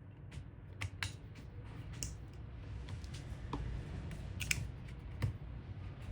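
Scattered sharp clicks and taps of small computer parts being handled, about seven of them at uneven intervals and the loudest about four and a half seconds in, over a low steady hum.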